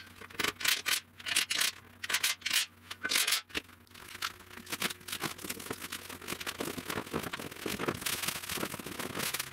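Scraping and knocking of a steel winch mounting plate being handled against the bumper brackets, irregular and uneven. About four seconds in this gives way to denser rustling and crinkling of plastic wrap and cardboard as a winch is lifted out of its box, loudest near the end.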